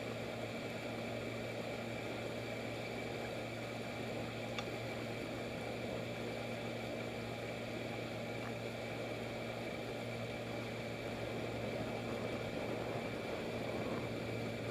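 1971 Evinrude 6 HP two-stroke twin outboard motor running steadily at cruising speed, pushing a jon boat along, with an even, unchanging engine note.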